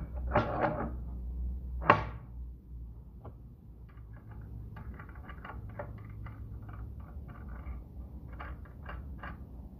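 Heavy cast-steel trenching head being fitted by hand onto the arbor of a Wadkin CC crosscut saw. Metal scrapes, then a sharp clank about two seconds in as it drops onto the spindle. After that comes a run of light metallic clicks as it is worked round and seated.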